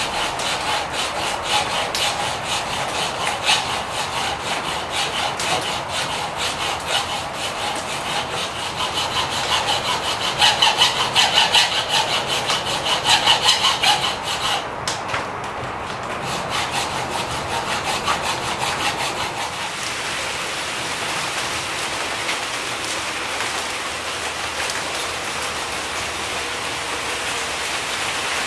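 Rough hand file rasping back and forth in quick, regular strokes across the stainless steel pins and lanyard tube set in a curly birch knife handle, filing them down toward flush; the strokes are loudest about halfway through. They stop about two-thirds of the way in, leaving the steady hiss of rain on a metal shed roof.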